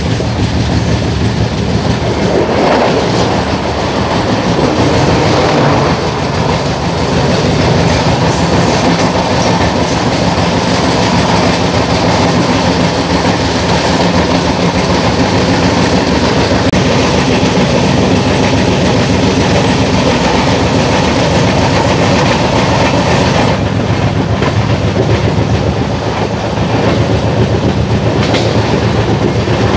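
Two passenger trains passing at speed on adjacent tracks, heard from the open door of a moving train. The oncoming train's locomotive goes by about two or three seconds in. Its sleeper coaches then rush past close by with a rapid clickety-clack of wheels over rail joints, until about three-quarters of the way through.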